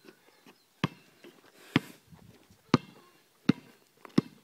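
Basketball bouncing on an asphalt court: five sharp dribbles about a second apart, coming slightly quicker near the end.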